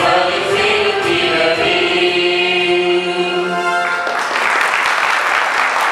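Mixed choir of men and women singing a Christmas song, holding a long final chord that cuts off just before four seconds in. Audience applause follows.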